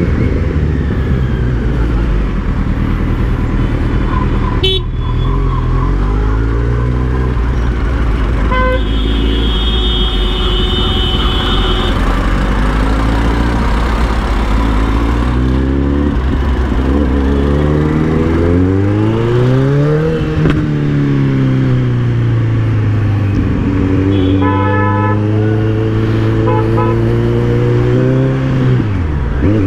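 Kawasaki Z900's inline-four engine running at low revs, twice revving up and dropping back, in the middle and near the end. Vehicle horns toot several times.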